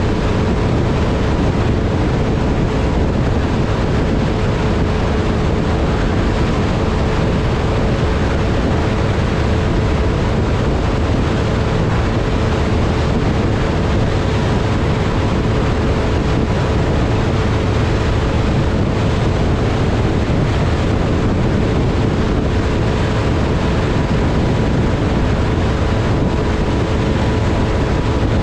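Mercury XR2 two-stroke outboard motor running at a steady speed while the boat is under way, its pitch holding level throughout, with a constant rush of wind and water.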